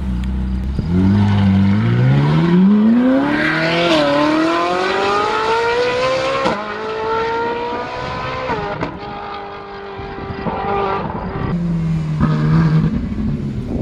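Ferrari 458's naturally aspirated V8 through a Novitec F1 exhaust, accelerating hard: the engine note climbs steeply and steps down at three quick upshifts, then eases off to a lower steady note and drops back toward idle before starting to rise again near the end.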